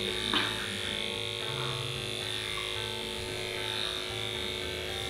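Electric pet grooming clippers running with a steady hum while shaving a long-haired cat's coat, with a short click about half a second in.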